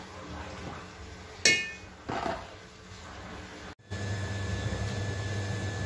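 Metal utensils on an aluminium cooking pot: one sharp ringing clink about a second and a half in and a lighter knock just after. From about four seconds in a steady low hum runs underneath.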